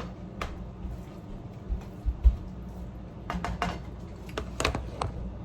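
Kitchen clatter while cooking ground meat: scattered sharp clicks and knocks of utensils and containers against a pan, with a quick run of them in the last couple of seconds, over a steady low hum. Two or three dull low thumps a little after halfway are the loudest sounds.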